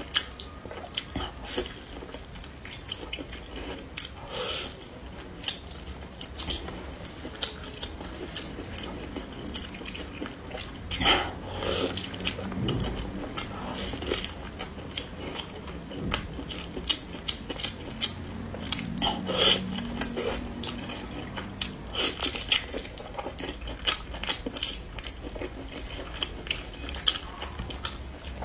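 Close-up eating sounds: chopsticks clicking against a bowl and wet biting and chewing of a large sauce-covered piece of meat, with a string of sharp clicks and two louder bouts of mouth noise about a third and two-thirds of the way through.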